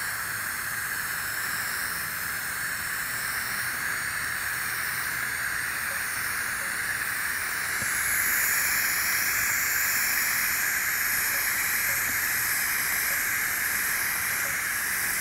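TIG welding arc at 175 amps laying down a hard-facing bead, a steady hiss as filler rod is fed into the puddle. It gets slightly louder about halfway through.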